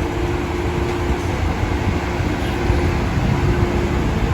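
Steady rumble of a moving metro train heard from inside the carriage, with an even hum throughout.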